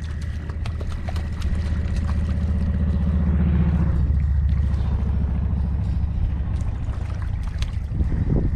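Spinning reel cranked steadily as a hooked bullhead is reeled in, its gears giving a fast, even whirring rattle over a low wind rumble on the microphone. A short splash near the end as the fish is lifted from the water.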